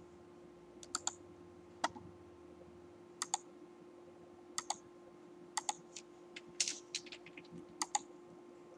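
Faint computer mouse clicks and keyboard taps: sharp clicks, mostly in quick pairs, about once a second, with a short run of rapid key taps a little after the middle. A faint steady hum sits underneath.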